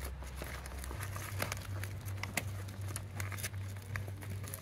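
Handling noise of cables and a fabric battery bag being tucked into place under a mobility scooter's frame: scattered soft rustles and small clicks, over a steady low hum.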